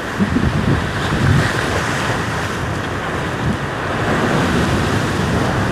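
Heavy ocean swell surging and breaking on the rocks, a steady rush of surf, with wind buffeting the microphone in uneven low rumbles.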